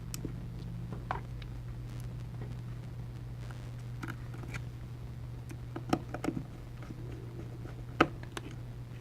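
Light clicks and taps of small tools and phone parts being handled on a workbench during a phone repair, over a steady low hum. The loudest taps come about six and eight seconds in.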